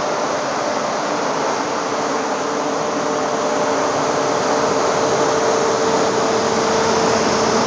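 Grain dryer's fans running steadily: a loud even rushing noise with a steady hum.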